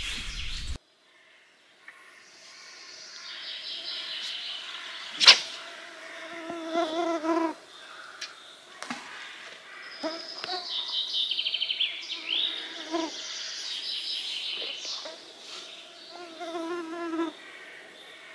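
Several birds singing and calling, with trills and some lower, rasping call series, and one sharp knock about five seconds in.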